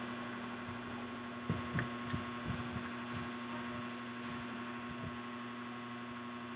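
Irregular soft, low chewing thuds from people eating French fries, over a steady electrical hum.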